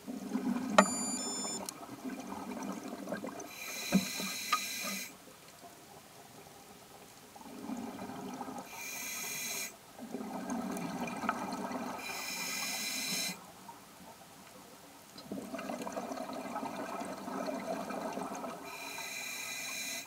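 Scuba diver breathing through an open-circuit regulator underwater: bursts of exhaled bubbles rumbling alternate with the short, high hiss of inhalation, about four breaths with quiet pauses between. A sharp click about a second in.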